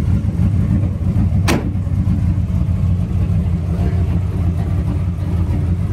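The 1955 Chevrolet 3100's twin-turbo 383 stroker V8 idling with a steady low rumble. A single sharp click sounds about a second and a half in.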